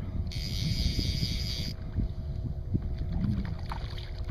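Wind buffeting the microphone over water slapping against a small boat's hull on a lake, a steady low rumble. A high hissing buzz starts sharply about a third of a second in and stops just as sharply about a second and a half later.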